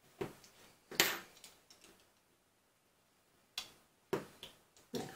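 A few short, sharp clicks and taps of small hobby tools on a plastic cutting mat, the loudest about a second in as a tool is set down. Near the end, a hobby knife clicks on the mat as it trims a tiny plastic valve-stem part to length.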